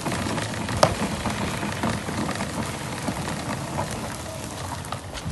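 Clearock 40-litre manual push sweeper pushed over concrete, its rotating side brushes scraping and sweeping grit with a steady crackling hiss. A sharp click about a second in.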